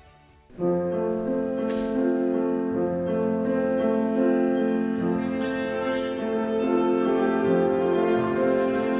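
An ensemble of tsymbaly, Belarusian hammered dulcimers, starts playing about half a second in, sounding long held notes in several voices at once.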